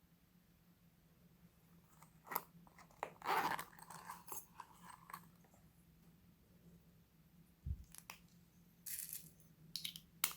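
Slime being mixed by hand with things stirred into it: a scattering of soft crunches, sticky squishes and small clicks with pauses between them, and a low thump near the end.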